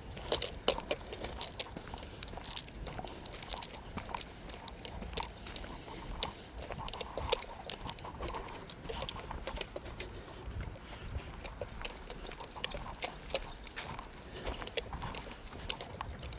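Irregular crackling and clicking, many small sharp snaps a second, as of someone walking over dry ground.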